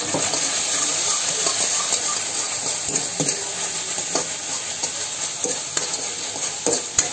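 Metal ladle stirring and scraping sauce in a hot black wok, with a steady sizzle of frying and irregular clinks of the ladle against the pan; one sharper clink near the end.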